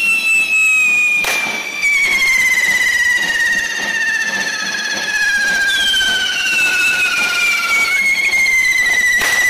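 Whistling carretilles, hand-held Catalan firework fountains, spraying sparks: a shrill whistle slowly falls in pitch, a second whistle joins about halfway and overlaps the first until it cuts off near the end. Two sharp bangs, about a second in and just before the end.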